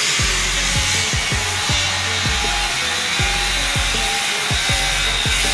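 Handheld angle grinder running steadily against steel, grinding down the weld beads on a fabricated steel beam.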